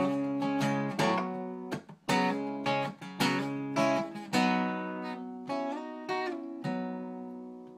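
Acoustic guitar strumming chords in an instrumental break of a country song. The strums come thick at first, then thin out, and the last chord rings down and fades near the end.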